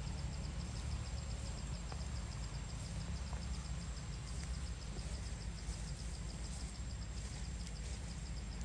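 Forest ambience: an insect calling in a fast, even pulse over a steady high-pitched whine, with a low rumble underneath.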